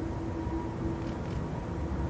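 Boeing 747's four jet engines at takeoff power, a steady low rumble. A faint hum over it fades out about a second in.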